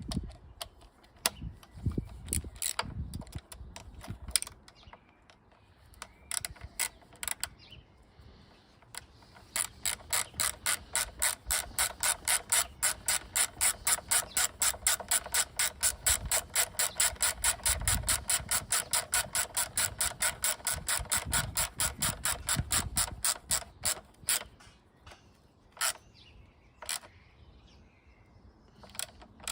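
Hand ratchet being turned: a steady run of sharp clicks, about four a second, for roughly fifteen seconds in the middle. Scattered tool clicks and knocks come before and after it.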